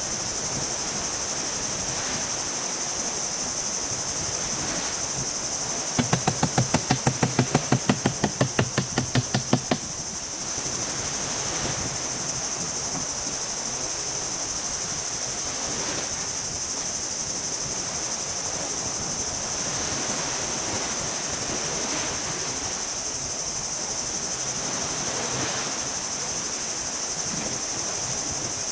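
Steady high-pitched insect chorus of crickets or cicadas. About six seconds in, a fast run of roughly twenty loud, even strokes lasts about four seconds, at around five a second.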